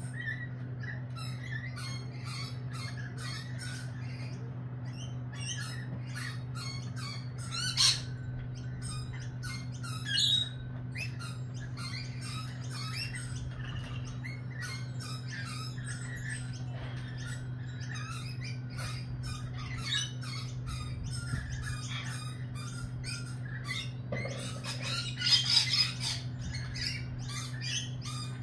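Lorikeets chattering with many short high calls and squawks, the loudest near 8 s, 10 s and around 25–26 s in. A steady low hum runs underneath.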